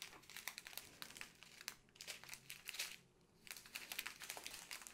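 Faint crinkling of thin clear plastic bags of diamond painting drills as strips of them are handled, a string of short crackles with a brief lull about three seconds in.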